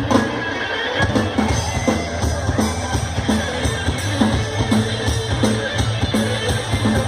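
Live urban rock band playing an instrumental passage: electric guitars, bass and a drum kit keeping a steady beat, with no singing.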